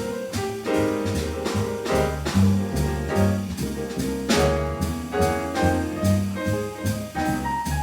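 Jazz quartet playing an instrumental chorus with no vocal: a bass line pulsing on the beat under piano, drums and a pitched lead line, at a steady tempo.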